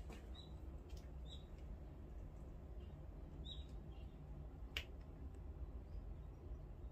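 Quiet background with a steady low hum, a few short, faint high chirps in the first four seconds and a sharp click just before five seconds in.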